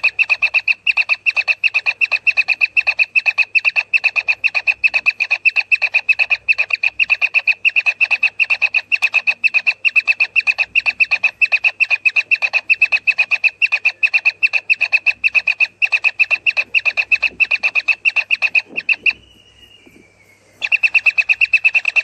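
Kingfisher nestlings calling in a fast, steady, high-pitched string, about four calls a second: the repeated begging calls of chicks in the nest. The calling breaks off for about a second and a half near the end, then starts again.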